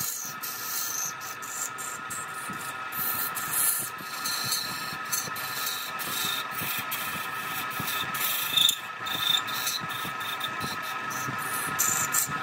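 Wood lathe running with a steady whine while the spinning wood is scraped in uneven strokes.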